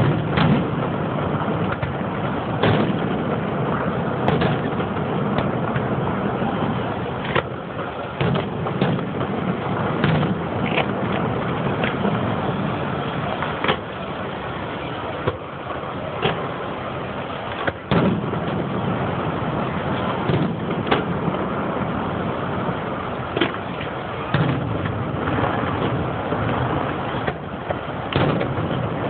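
Aerial firework shells bursting in sharp bangs at irregular intervals, every second or two, over a steady noise that does not let up.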